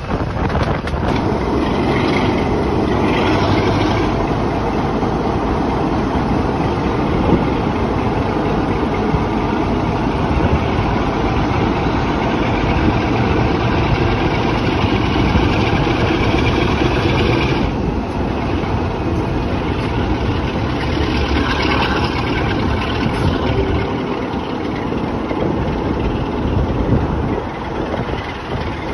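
Class 45 diesel locomotive's Sulzer twelve-cylinder engine running steadily as the train travels, heard from the cab side window; the higher part of the sound eases off about two-thirds of the way through.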